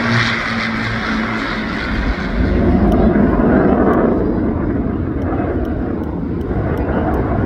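An aircraft's engine roaring as it passes, swelling about two and a half seconds in and fading after about four seconds.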